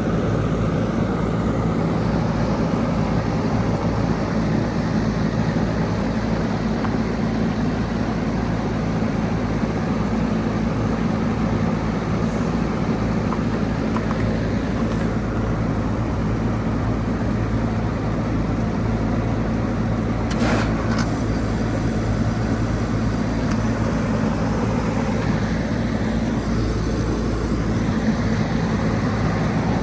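Goodman GSZB4 2.5-ton heat pump outdoor unit running steadily in a defrost cycle, its compressor giving a constant low hum over a noise bed. A single short sharp sound comes about twenty seconds in.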